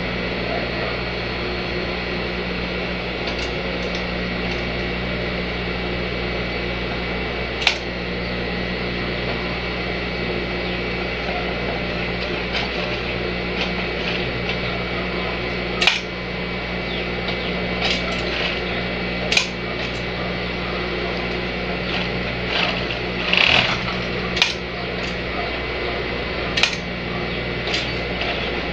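Industrial overlock sewing machine humming steadily, with a few sharp clicks and rustles as the fabric is handled at the presser foot.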